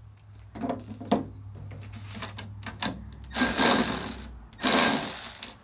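Hand tools being handled against a sheet-metal tool cart: a few small clicks, then two loud rattling, scraping bursts of about a second each, starting a little past halfway.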